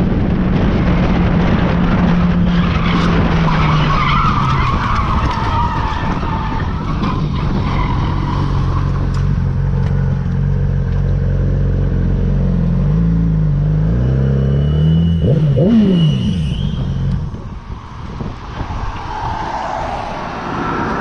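Motorcycle engine running at highway speed under heavy wind rush. About two-thirds of the way through its pitch wavers and briefly rises, then the engine sound drops away and the whole sound gets quieter.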